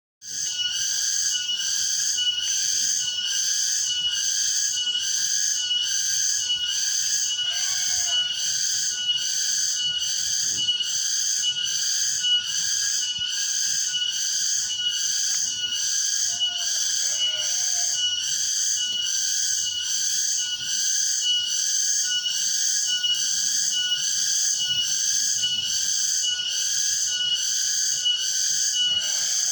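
Cicada (tongeret) calling: a continuous, high-pitched buzz that swells and fades about once a second in a steady rhythm.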